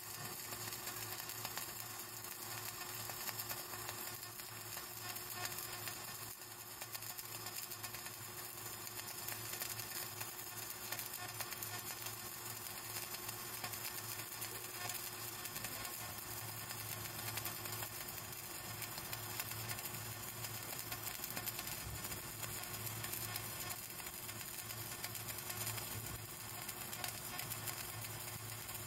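Flux-cored arc welding on a vertical (3G) joint in steel plate: the arc runs steadily without a break.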